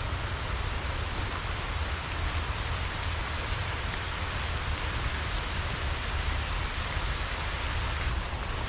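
Steady rain falling: an even hiss with a deep rumble beneath it.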